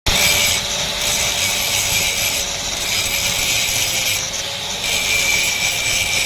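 Angle grinder grinding steel on a truck chassis: a steady motor whine under a harsh grinding rasp that swells and eases every second or so as pressure on the metal changes.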